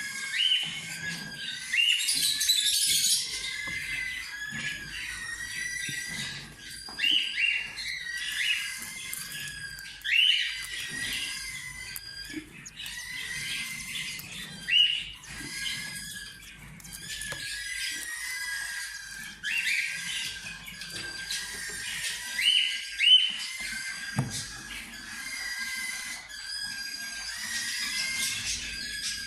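Cockatiels chirping and calling together, a busy continuous twitter with short rising call notes every second or two.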